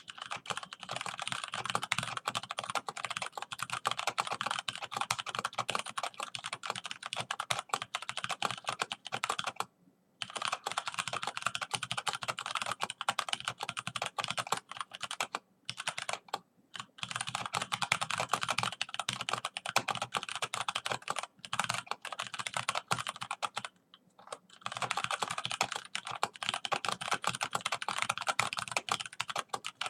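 Fast, continuous typing on a computer keyboard, a dense run of key clacks broken by a few brief pauses.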